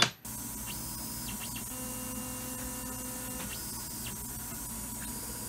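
Tormach PCNC 770 CNC mill running a touch-probe cycle: a steady machine hum with whining tones from the axis motors that start and stop as the probe is moved against the aluminium stock.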